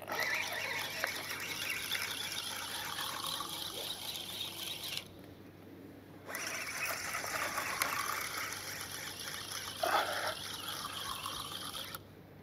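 Fishing rod and fixed-spool reel strained against a snagged rig, a continuous squealing whir as the line is wound and pulled under heavy tension. It stops for about a second about five seconds in, then resumes, with a short louder squeak near the end before it stops.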